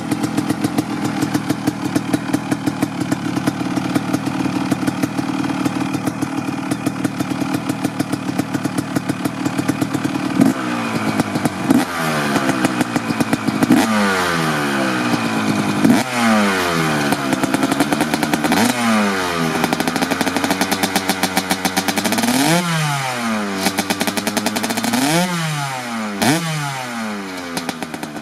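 1995 Honda CR250R's single-cylinder two-stroke engine, fitted with a Pro Circuit R-304 shorty silencer, idling steadily. From about ten seconds in it is revved in a string of quick throttle blips, each rising and falling in pitch, while the bike stands still.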